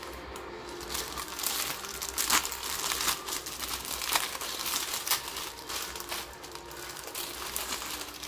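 Plastic instant-noodle packet crinkling and crackling as hands handle it and tear it open, in irregular sharp crackles, the loudest about two seconds in.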